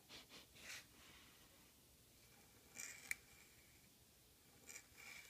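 Pointed steel dip nib in an oblique holder scratching faintly across paper in short pen strokes, with a sharper scratch and tick about three seconds in and two more scratches near the end.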